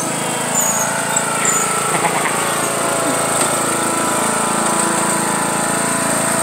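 John Deere riding lawn mower's engine running steadily under the load of towing a skateboarder.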